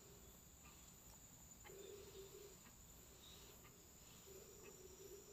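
Near silence, with faint scattered ticks of a whisk against a glass bowl as eggs and sugar are beaten.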